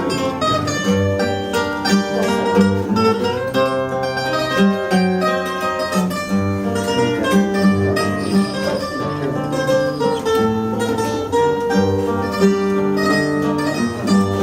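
Fado instrumental introduction on Portuguese guitar and viola de fado (classical guitar): quick, bright plucked melody over a walking bass line.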